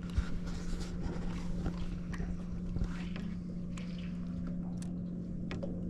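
A boat's motor running with a steady low hum, with scattered short clicks and knocks over it.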